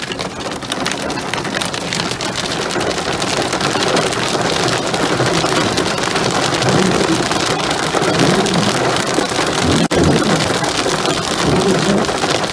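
Hail pelting a car's roof and windshield, heard from inside the car as a dense, rapid patter of ice pellets that gets heavier over the first few seconds.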